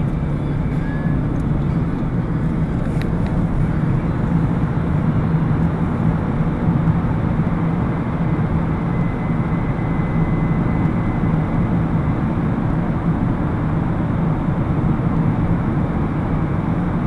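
Car driving at motorway speed, heard from inside the cabin: a steady mix of engine and tyre noise with a low hum.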